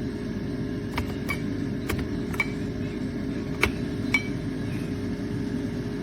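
A handful of light, sharp clinks, about six spread over four seconds, of the stainless-steel salt and pepper grinders being handled and knocking against each other or their tray, over a steady low hum.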